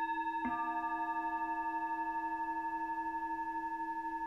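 Two singing bowls ringing: one struck just before, a second struck about half a second in, their tones sustaining together with a slight steady wavering.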